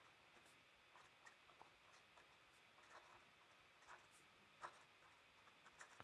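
Faint scratching of a fountain pen nib on paper in short, separate strokes as handwriting goes on, the clearest scratch a little past the middle; otherwise near silence.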